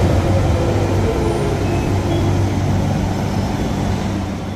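London Underground tube train moving along the platform. It makes a loud, steady rumble of wheels on rail with a motor hum, which eases off near the end.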